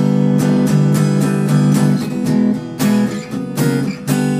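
Fender Jazzmaster HH electric guitar played on a clean sound through its neck humbucker, strumming chords at a steady pace of about three strokes a second.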